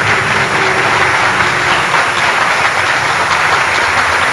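Loud, steady rushing hiss like a jet of air, swelling in just before and holding evenly throughout.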